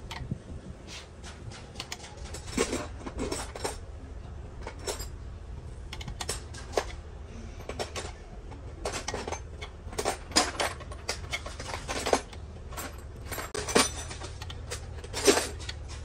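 Metal tools and engine parts clinking and knocking against each other during engine rebuilding work: irregular light metallic taps, some in quick clusters, over a low steady hum.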